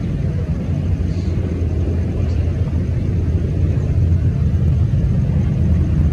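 Airbus A320-214's twin CFM56 jet engines at takeoff thrust as the airliner lifts off and climbs, heard as a steady low rumble that grows slightly louder about halfway through.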